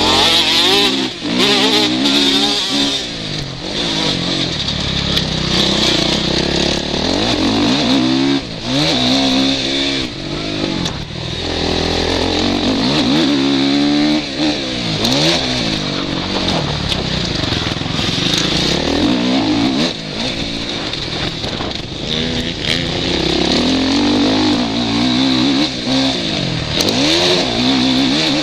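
Suzuki RM-Z450 single-cylinder four-stroke motocross engine being ridden hard. The revs climb and drop again and again with throttle and gear changes.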